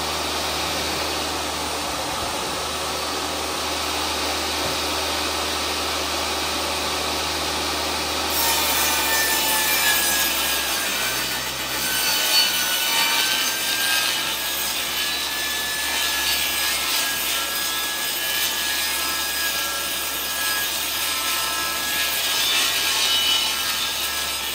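Portable jobsite table saw running free, then from about eight seconds in ripping through a sheet of OSB. The cut is louder, with a high whine over the rasp of the blade in the wood.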